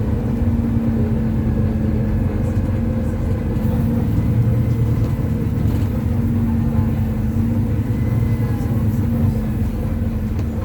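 Volvo B9TL double-decker bus's six-cylinder diesel engine running steadily under way, heard from inside the bus over road and body noise, its drone holding a fairly even pitch.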